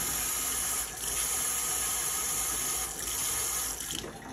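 Kitchen faucet running a steady stream of water into a sink and down the drain. The stream thins and the sound fades near the end.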